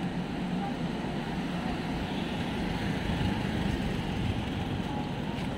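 Steady city street noise with road traffic, an even rumble with no distinct events.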